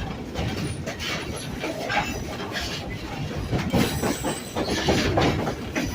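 Passenger train running along the track, heard from aboard a car: a steady rumble with irregular clacks of the wheels over rail joints and some high wheel squeal.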